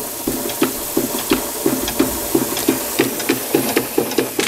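Märklin 4147/11 live steam ship's engine running at a slow tick over, its exhaust beating evenly about three times a second over a steady hiss of steam.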